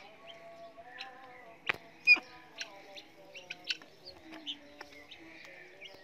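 Parrots giving short, sharp chirps and squawks at irregular intervals, with one loud squawk about two seconds in and a sharp click just before it.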